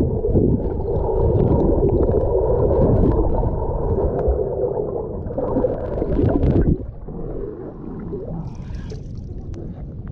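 Muffled gurgling and sloshing of water while swimming, heard as if from underwater. About seven seconds in it cuts off suddenly and gives way to quieter water noise.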